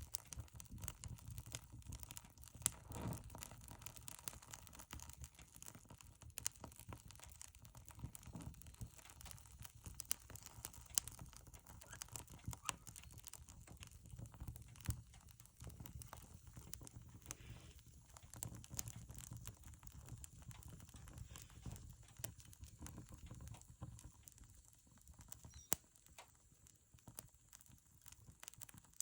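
Firewood burning in an old stove, crackling with irregular sharp pops over a low steady rumble.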